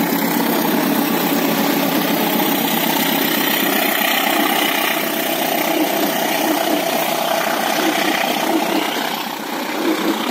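A KAI CC 201 diesel-electric locomotive running as it passes close by, followed by its passenger coaches rolling along the rails as the train pulls out of the station. The sound is loud and steady, with a slight dip and a few uneven knocks near the end.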